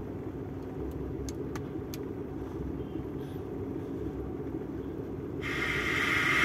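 Daihatsu Charade Classy's engine idling steadily, heard inside the cabin, with a few light clicks from the car stereo's buttons about a second in. Near the end the radio comes on as a hiss that grows louder as the volume is turned up.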